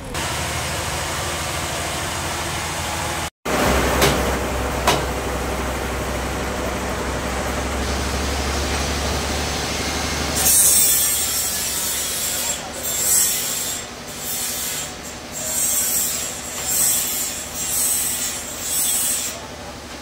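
Band sawmill's blade cutting through a large jackfruit log. A steady motor hum runs under it, and from about halfway the cutting hiss swells and fades in repeated surges.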